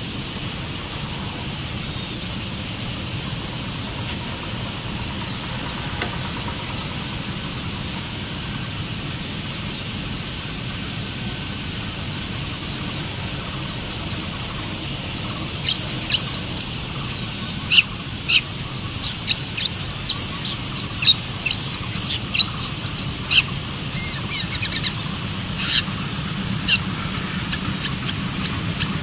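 Long-tailed shrike singing: faint chirps at first, then, about halfway through, a fast run of loud, sharp, high chirps lasting about ten seconds, over a steady high-pitched tone.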